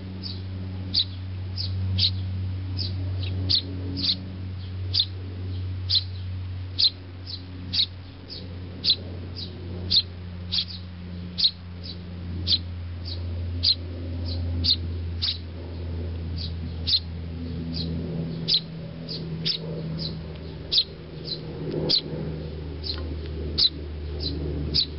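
Eurasian tree sparrows chirping: short, high, repeated chirps, about two a second, over a steady low hum.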